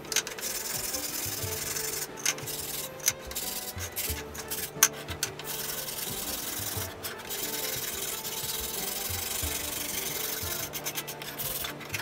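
Flat metal file rasping back and forth along the edge of a painted wooden slat, in steady strokes with a few sharp ticks.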